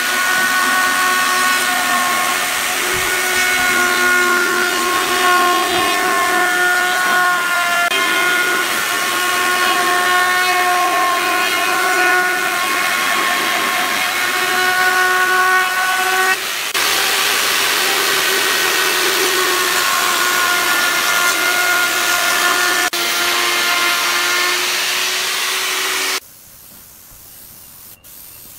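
Handheld plunge router running at full speed as it cuts along a wooden tabletop's edge: a steady high motor whine with several overtones, its pitch shifting slightly with load, broken off abruptly twice. Near the end it gives way to a much quieter steady hiss of a spray gun.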